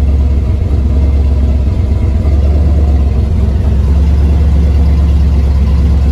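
Supercharged big-block Chevy V8 running steadily at a low, even speed while warming up, its freshly installed EFI in its learning mode.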